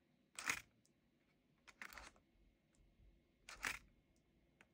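Three faint, brief clicks and rustles from a hand on an old computer keyboard, each a second or more apart.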